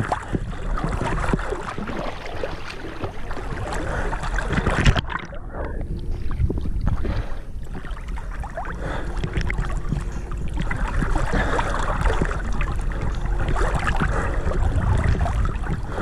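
Sea waves lapping and splashing right at a microphone held at the water's surface, with wind rumbling on the microphone. About five seconds in the sound turns muffled for two or three seconds, then the splashing returns.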